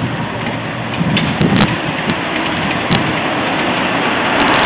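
Wind buffeting the camera microphone: a steady rushing noise with a few low thumps between one and two seconds in.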